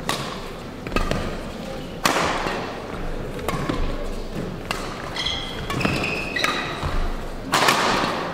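Badminton rally: rackets striking the shuttlecock in a string of sharp hits about once a second, the loudest about two seconds in and near the end. Short high squeaks of court shoes on the hall floor come between the hits.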